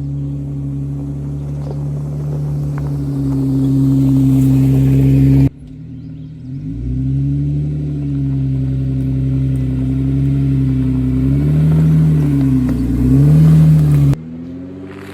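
A Jeep's engine running while it drives, its pitch easing down and rising again several times as the revs change. The sound cuts off abruptly twice where clips are spliced.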